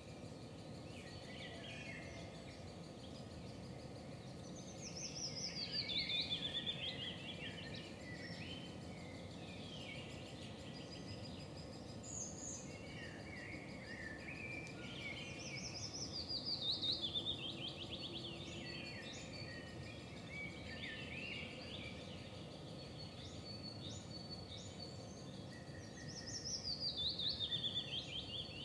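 Songbirds singing outdoors: one bird repeats a rapid trill that falls in pitch, three times about ten seconds apart, over scattered chirps from other birds and a steady low background hum of outdoor noise.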